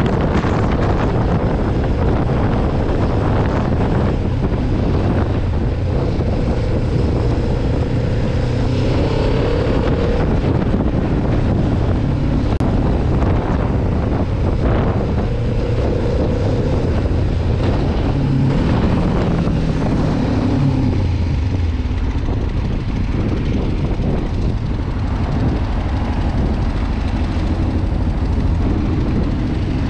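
Kawasaki Ninja 500R's parallel-twin engine running on the road, its pitch rising and falling as it revs through the gears, under heavy wind noise on the microphone.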